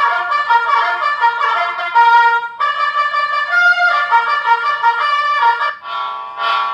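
Electronic imitation basuri truck horn playing a brass-like melody through a horn speaker, one held note after another. Near the end the tune stops and gives way to short horn blasts.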